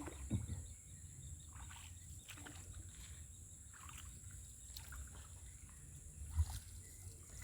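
Faint water sounds of a small boat on the move: soft swishes about a second apart over a low steady rumble, with a thin steady high whine.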